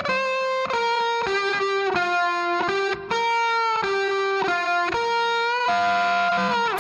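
Music: an electric guitar plays a melody of single held notes, some sliding down in pitch at their ends.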